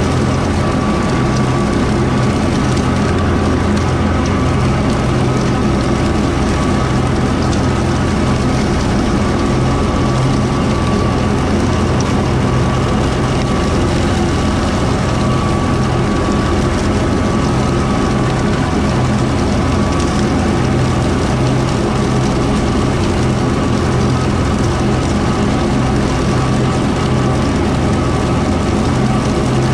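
Kubota M4-071D tractor's diesel engine running steadily under load, driving a Woods BW12 batwing rotary mower, with a steady high whine over the engine's drone.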